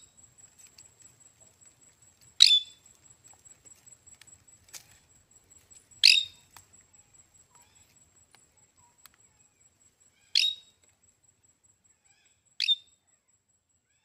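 Parakeets giving short, shrill screeching calls, one every two to four seconds: four loud ones and a fainter one. A faint steady high tone runs underneath.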